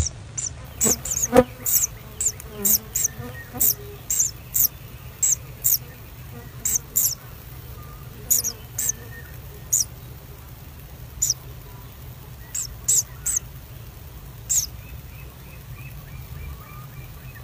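Common kingfishers' short, very high-pitched chirps in a nest burrow: about twenty calls, thick in the first six seconds and sparser after, over a low steady hum. A sharp click about a second in is the loudest sound.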